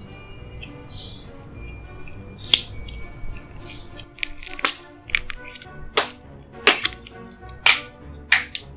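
Soft background music, joined from about two and a half seconds in by a run of about a dozen sharp, crisp clicks and smacks: close-miked eating sounds from a dessert mukbang.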